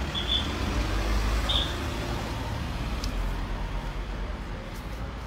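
Street traffic noise with a car engine running close by as a steady low rumble. Two short high beeps come in the first two seconds, and a single click follows about three seconds in.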